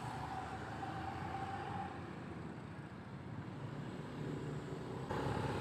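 Steady road and traffic noise heard from a vehicle moving through city streets. The noise jumps suddenly louder near the end.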